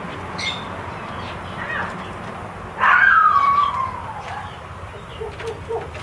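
Cockatiels calling: a few short chirps, then about three seconds in a loud call that slides down in pitch over about a second and a half.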